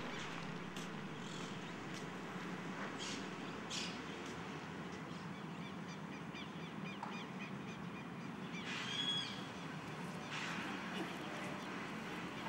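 Outdoor ambience: birds chirping and calling over a steady low background rumble, with a louder arching bird call about nine seconds in.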